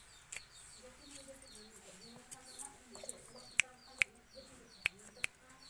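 Small birds chirping in a quick, steady run of short falling notes, with a few sharp taps in the second half.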